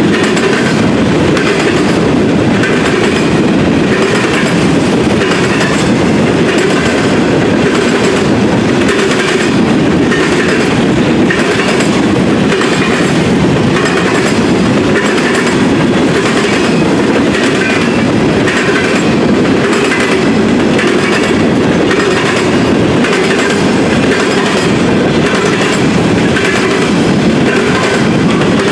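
Freight train of covered hopper cars rolling past close by: a steady, loud rumble of steel wheels on rail, with a repeating clickety-clack as the wheels pass over rail joints.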